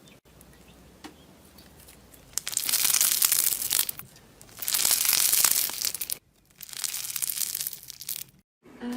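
Slime being squeezed and worked by hand, crackling and popping in three bouts of about one and a half seconds each after a quiet start.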